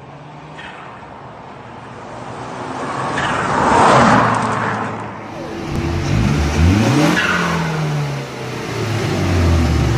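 Mazdaspeed 3's turbocharged four-cylinder engine accelerating hard, its pitch climbing in surges with brief drops in loudness about five seconds in and again near eight seconds where the throttle lifts, the moments when turbo flutter is heard.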